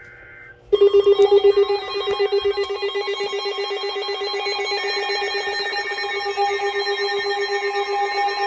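Electronic emergency alert alarm going off, heralding a new tornado warning: a loud, rapidly pulsing multi-tone alarm that starts abruptly about a second in, after a faint steady tone.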